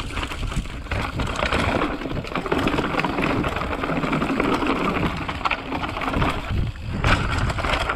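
Mountain bike riding down a rough trail: tyres crunching over dirt and the bike rattling over bumps in a dense, continuous clatter.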